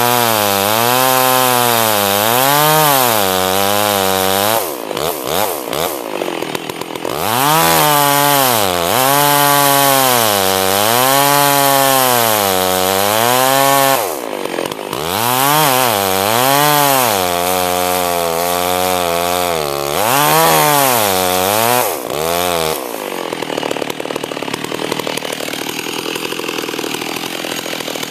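Two-stroke chainsaw cutting into a dead standing tree. The engine pitch swells and dips about once a second as the chain bogs in the wood and recovers. It breaks off briefly twice, then about 23 s in the engine note gives way to a lower, steady hiss.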